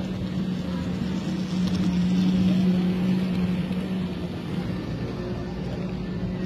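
N scale model freight cars rolling past close by on the layout track: a steady rumble with a constant low hum, swelling a little about two seconds in.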